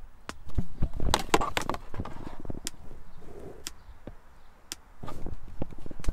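Car speakers playing a polarity-test pulse, a sharp click about once a second, while a handheld polarity tester is held to each speaker to check that it is in phase. Knocks and rustling come in between, loudest about a second in and again near the end, as the tester is handled and moved.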